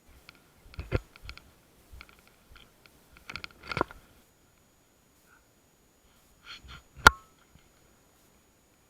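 Groups of short clicks and knocks, then one sharp, loud crack with a brief ring about seven seconds in.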